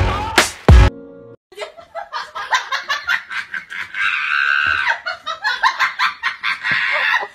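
Two loud, bass-heavy music hits in the first second. After a short gap, people laugh and snicker in quick, choppy bursts, with one longer high laugh held near the middle.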